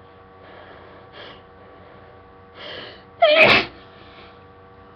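One loud sneeze from a person with a cold, built up to with a few short catching breaths and ending in a voiced 'achoo' and a breathy exhale.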